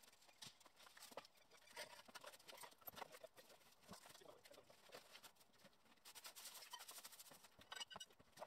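Faint, irregular scratchy strokes of a broom sweeping dust and debris across a concrete floor, with a few sharper taps near the end.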